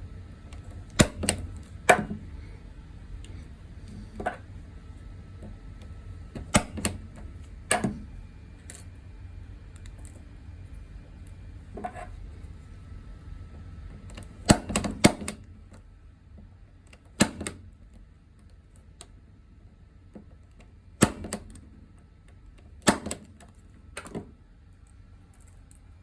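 Punch-down tool seating Cat 6 wires into the connector's contacts: about a dozen sharp clicks at irregular intervals, a few in quick succession near the middle, as each wire is pressed down, sometimes more than once.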